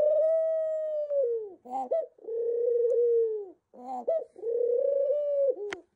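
Pet dove cooing: three long, drawn-out coos of about a second and a half each, with short quick notes between them. There is a sharp click near the end.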